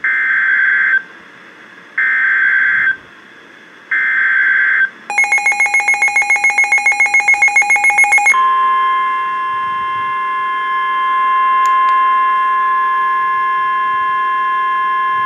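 Emergency Alert System signal from NOAA Weather Radio. It opens with three one-second bursts of SAME header data, a buzzy digital screech, about two seconds apart. About three seconds of rapid beeping follow, at roughly seven to eight beeps a second, and then the steady warning alarm tone holds for about seven seconds.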